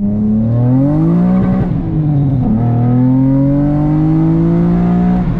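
Car engine accelerating hard through the gears. The engine note climbs, drops at upshifts about 1.7 and 2.5 seconds in, then climbs slowly again until another shift near the end.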